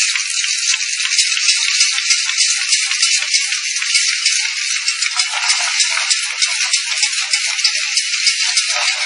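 Sticker labeling machine running, giving a dense, continuous, high-pitched rattle.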